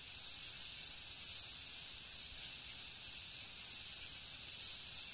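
Insects chirping: a steady high-pitched trill pulsing about three times a second.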